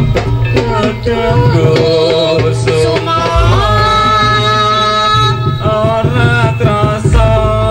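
Live jaranan accompaniment: an Javanese ensemble of drums and hanging gongs keeping a steady beat, with a lead melody of long held notes over it.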